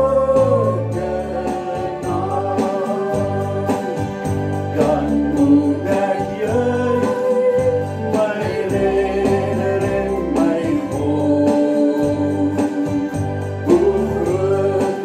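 Gospel worship music: a singer or singers carrying a melody over a band, with a bass line and a steady beat.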